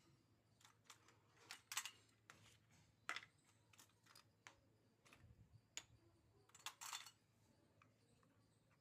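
Small plastic toy kitchen pieces being handled, giving scattered light clicks and taps, with a quick cluster of clicks about two seconds in and another near seven seconds.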